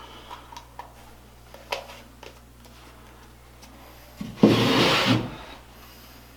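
Wooden shelf pieces being handled: a few light taps and clicks, then about a second of loud rubbing of wood on wood about four seconds in.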